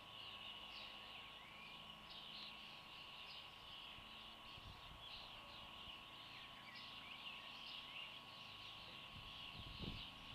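Faint, continuous twittering of many small birds: a busy chorus of short, high chirps.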